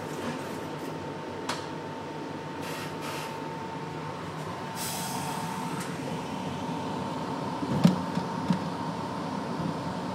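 Inside an R62A New York City subway car on the 1 line: a steady hum and rumble from the car with a thin, steady whine over it. A few sharp knocks break in, the loudest about eight seconds in.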